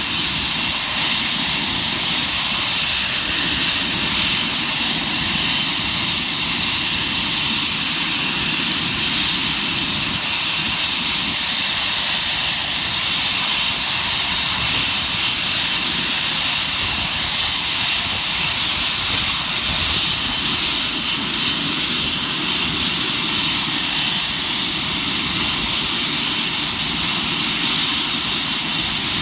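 Tornado GR4's Rolls-Royce RB199 turbofan engines running steadily, a loud high-pitched whine over a rushing hiss that holds level throughout.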